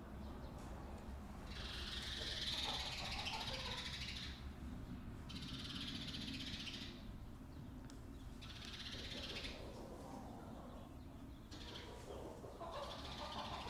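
Chickens in a barn, clucking and stirring, in about four bursts a second or more long over a steady low hum.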